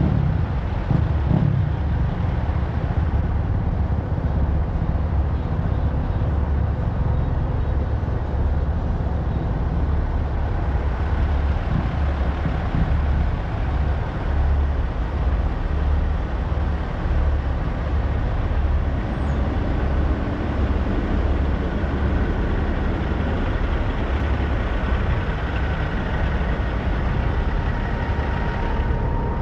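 Steady low rumble of idling truck engines, with no speech.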